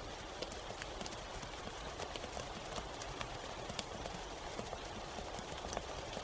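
Steady soft rain: an even hiss with many irregular, sharp drop taps scattered through it.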